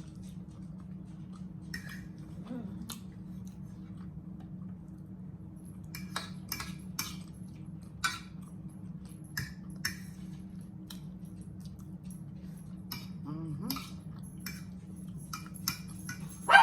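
Scattered light clicks and clinks of cutlery against dishes, spread irregularly over a low steady hum.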